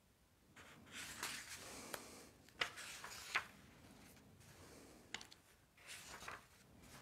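Faint rustling and handling noise, with two sharp clicks about two and a half and three and a half seconds in.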